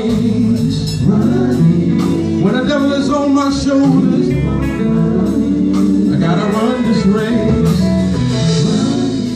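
Male gospel group singing live with instrumental backing, one lead voice on a handheld microphone in front of the group.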